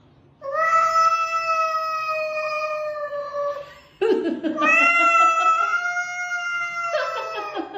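Domestic cat giving two long, drawn-out yowls, each held steady for about three seconds.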